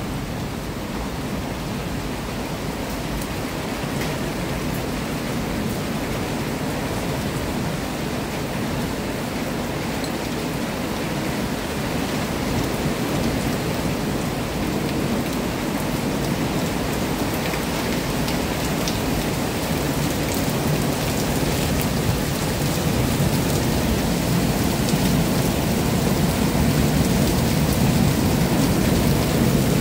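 Heavy rain falling steadily in a thunderstorm, a dense even hiss with a few scattered sharp drop impacts. A low rumble swells and the whole sound grows louder over the last several seconds.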